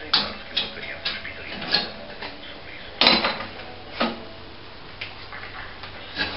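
Steel angle-bar parts of a homemade sheet-metal bending brake clanking against each other and the vise as they are handled and fitted: about seven sharp metallic knocks, the loudest about three seconds in.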